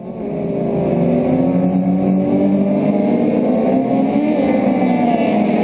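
Several Honda Civic race cars with VTEC engines revving hard as they pull away from a standing start. The engine noise builds over the first second, then stays loud with engine notes slowly rising.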